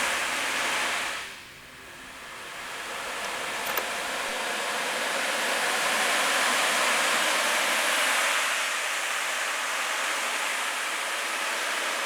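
A steady rushing, hissing noise, like surf or rushing water, that drops away sharply about a second in and swells back up over the next few seconds.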